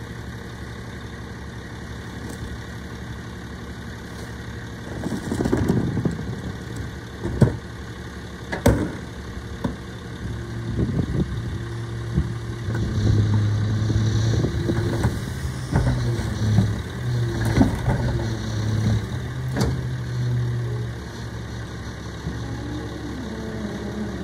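Rear-loading garbage truck's engine idling, then several sharp bangs and clunks as a cart is handled at the rear hopper. The engine then speeds up to run the hydraulics, with a whine that slides up and down in pitch before settling back toward idle near the end.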